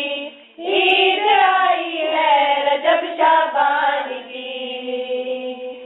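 Young girls' voices singing an Urdu devotional manqabat together, in long drawn-out melodic notes. A short breath comes about half a second in.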